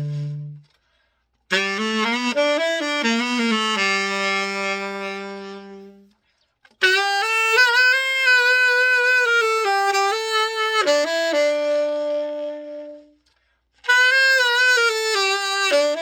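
Yamaha YTS-62 tenor saxophone playing three short phrases, each a quick run of notes settling on a held note, separated by abrupt breaks of silence.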